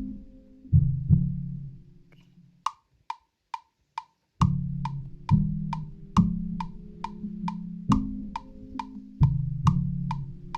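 Metronome clicking at 137 BPM, a little over two sharp clicks a second, starting about two and a half seconds in. Low sustained instrument notes, each ringing for about a second, are played over it.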